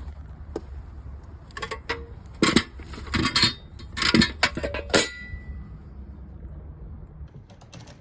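A handful of sharp metallic clinks and clatters, bunched between about two and five seconds in, as small hard parts or tools are handled. The last clink leaves a brief ringing tone. A steady low hum runs underneath.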